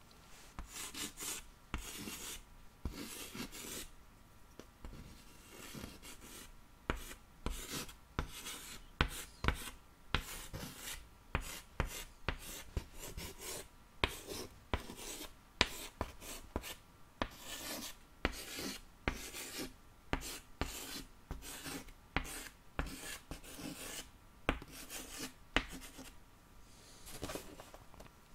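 Chalk writing on a small chalkboard close to the microphone: an irregular run of short scratchy strokes and taps.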